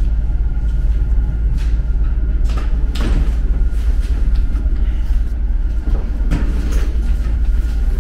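Suburban electric train running, a steady low rumble heard inside the passenger car, with a few knocks and rattles, the loudest about 3 s and 6 s in.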